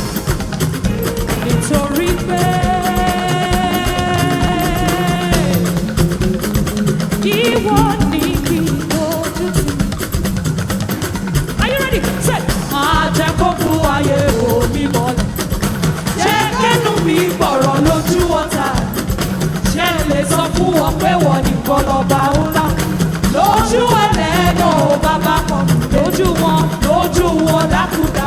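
Gospel worship music with singing over a band. A long held note comes about two seconds in, then a voice sings a melody from about seven seconds on.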